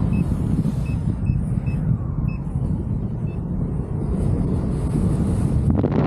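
Airflow buffeting the microphone in paraglider flight at about 35 km/h, a steady low rush. Over it come short high beeps from a flight variometer, about one every half second for the first few seconds, signalling that the glider is climbing.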